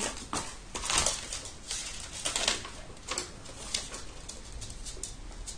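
A folded sheet of paper being pulled out and unfolded: several short rustles and crinkles, the loudest about a second in and again around two seconds in, then lighter handling.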